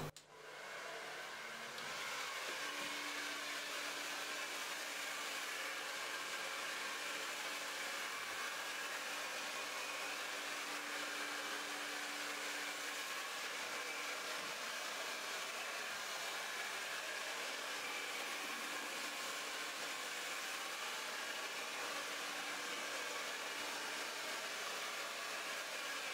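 Handheld hair dryer blowing hair. It starts up in the first second, then runs with a steady rush of air at a constant level.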